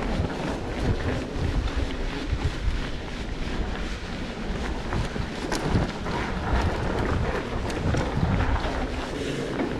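Mountain bike rolling over a dirt trail: wind buffeting the camera microphone over a steady low rumble, with many small knocks and rattles from the bike.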